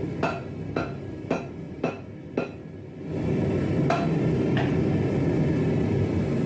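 Hand hammer striking hot Damascus steel on an anvil, five blows about twice a second, then a pause and two more blows, over a steady low rumble that grows louder about halfway through.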